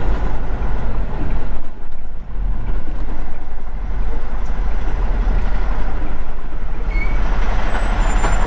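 Semi truck's diesel engine running with steady road and cab noise, heard from inside the cab as the truck rolls slowly.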